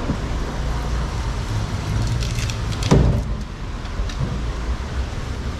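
A long knife working through a giant bluefin tuna carcass, with a few light scraping clicks and one dull thump about three seconds in. A low steady rumble runs underneath.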